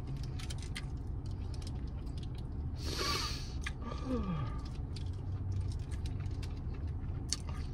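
Close-up chewing of sushi, with many small wet mouth clicks over a low steady hum. A brief breathy noise comes about three seconds in, and a short 'mm' falling in pitch about four seconds in.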